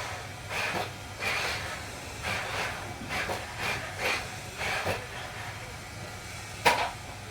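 Small electric motors of a Huina mini RC construction toy whirring in short bursts, about eight quick stop-start runs, then a single sharp click near the end.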